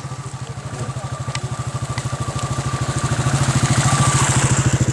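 Motorcycle engine approaching and passing close by, a steady rapid exhaust beat that grows louder as the bike nears, loudest about four seconds in.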